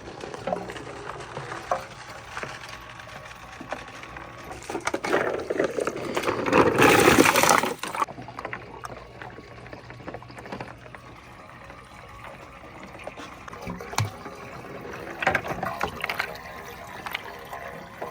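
Marbles clicking and knocking as they roll down a wooden marble run, over running water. About five seconds in, a louder rush of water builds for about three seconds and cuts off suddenly.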